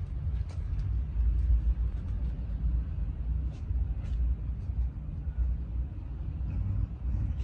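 Low, uneven rumble on the microphone with a few faint light ticks.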